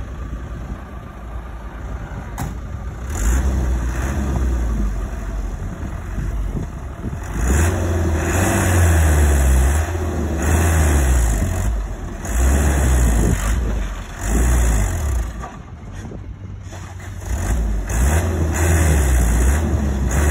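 Light dump truck's diesel engine revving hard in repeated surges, its pitch rising and falling several times, as the loaded truck tries to drive out with its rear wheels sunk in mud.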